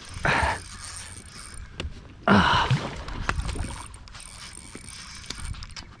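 Spinning reel being cranked to wind in a hooked bass, its gears giving a steady mechanical clatter. Two short louder bursts cut in, about a third of a second in and again just after two seconds, the second the loudest.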